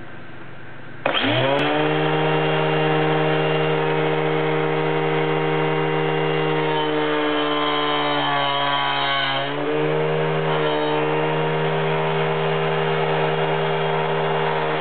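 Cordless angle grinder switching on about a second in, spinning up fast to a steady high whine while it cuts into plywood. Its pitch sags for about a second and a half past the middle as the blade takes more load, then recovers.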